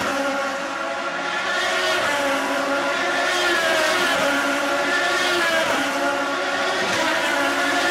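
Several IndyCar race cars' Honda 3.5-litre V8 engines running at high revs at once, their overlapping notes rising and falling in pitch as the cars accelerate, shift and pass.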